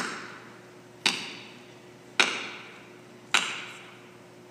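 Axe chops on wood, four sharp strikes a little over a second apart, each ringing out with a long echo through an arena's sound system.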